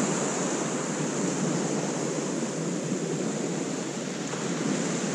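Waves breaking and washing onto a shingle beach: a steady rushing hiss that eases a little about four seconds in, then builds again.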